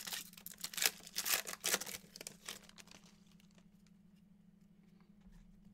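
Foil wrapper of an 18/19 Contenders Draft basketball card pack crinkling and tearing as it is ripped open, dense crackling for about the first two and a half seconds. After that only faint rustles and clicks of the cards being handled.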